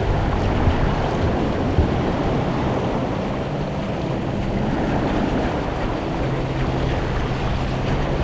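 Ocean surf washing on the beach, with wind rumbling on the microphone.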